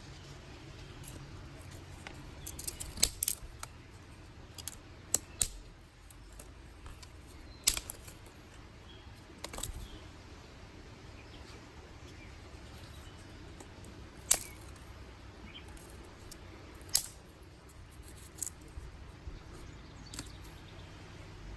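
Dry sticks and twigs snapping by hand in sharp cracks, a quick run of several snaps about three seconds in, then single snaps every few seconds. A low steady rumble runs underneath.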